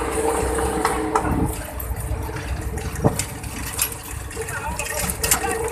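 A vehicle's engine running with a steady low rumble, and a few scattered knocks and rattles.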